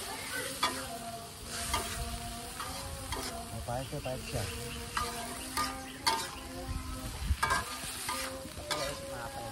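Metal spatula scraping and knocking irregularly against a wok as vegetables are stir-fried, with hot oil sizzling underneath.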